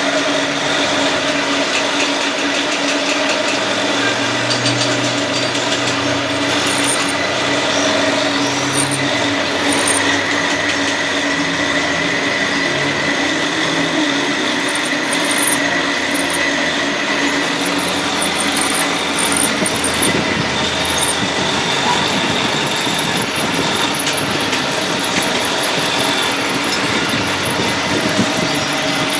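Machine-shop machinery running steadily: a constant mechanical drone with several held tones.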